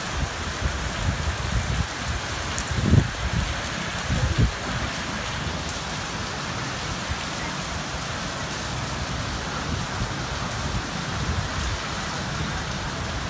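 Steady rain falling on city rooftops, an even hiss, with a couple of short low thumps about three and four and a half seconds in.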